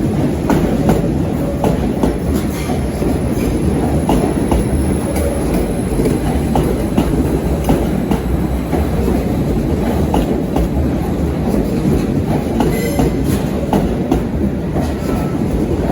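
Train moving at low speed through a station, a steady rumble of wheels on rails with irregular clicks as the wheels cross rail joints.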